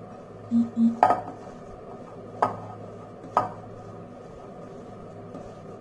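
A kitchen utensil clinking against a bowl while the cutlet mixture is worked: two short dull knocks about half a second in, then three sharp clinks spread over the next few seconds, over a faint steady hum.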